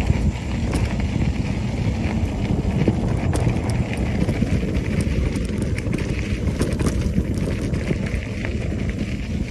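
Mountain bike ridden over a dirt trail: tyres rolling with a steady rumble, and the bike rattling and clicking over bumps. Wind buffets the camera microphone.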